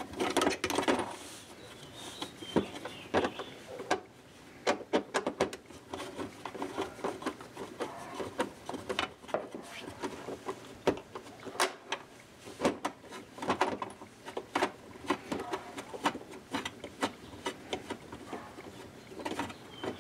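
Screws being turned out by hand with a screwdriver from a boat console's glove box: irregular small clicks, creaks and scrapes of metal on the screw heads and surrounding panel, with no steady motor sound.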